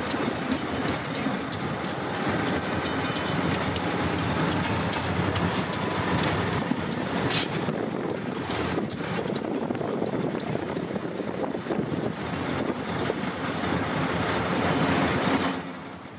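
Freight train rolling past, its wheels clicking over the rail joints with a faint high wheel squeal. The sound drops away suddenly near the end.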